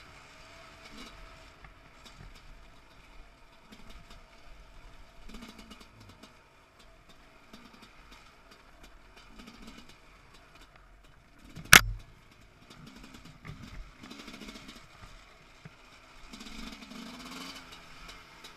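300 cc two-stroke enduro motorcycle engine running quietly at low revs, with one loud, sharp knock about twelve seconds in.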